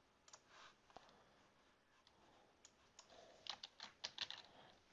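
Faint computer keyboard and mouse clicks: a scattered run of sharp clicks, busiest between about three and four and a half seconds in, over near-silent room tone.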